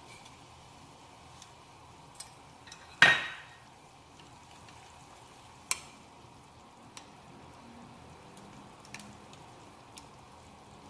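Metal cookware and utensils clinking, with one loud ringing clang about three seconds in and a few lighter clicks, over a faint steady hiss of cooking.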